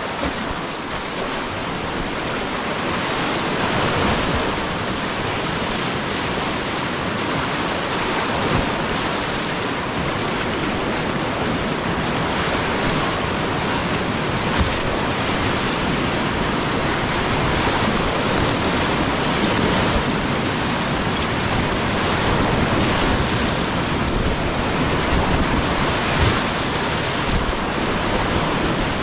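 Whitewater rapids rushing and churning around a canoe running through them: a steady, dense rush of water that swells a little after the first few seconds. A few brief knocks stand out above it.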